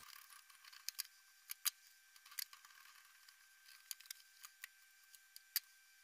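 Faint, irregular clicks and taps, about a dozen, from a knife and hands working a trout on a wooden cutting board.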